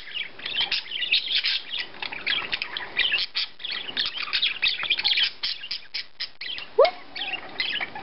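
Budgie (budgerigar) chattering and warbling: a fast, continuous run of high chirps and clicks, with one louder rising call about seven seconds in.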